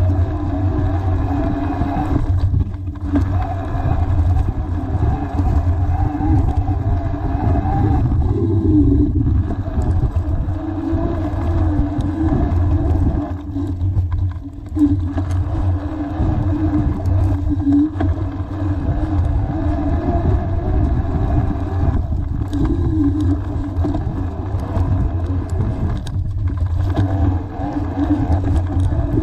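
Hardtail mountain bike riding over dirt singletrack, heard through a camera mounted on the bike itself: a steady, loud, rough rumble of the knobby tyre on the trail and of the frame shaking, with a brief lull about halfway through.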